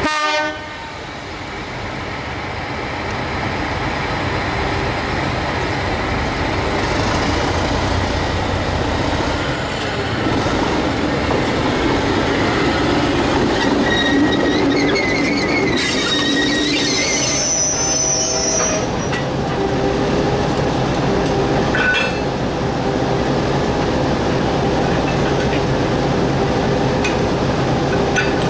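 NZR Dg class diesel-electric locomotive running as it moves slowly along the track. For a few seconds past the middle, steel wheels squeal on a curve.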